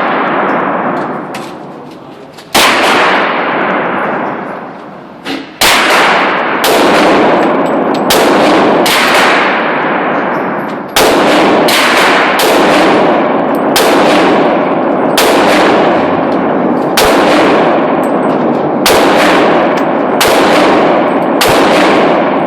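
Glock 23 pistol in .40 S&W being fired: about twenty single shots, a few slower at first and then roughly one a second, each trailing off in a long echo.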